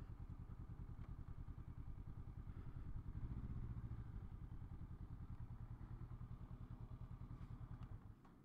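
Honda SCL500's parallel-twin engine idling with a steady, fast pulse, swelling slightly a few seconds in, then cutting off abruptly near the end.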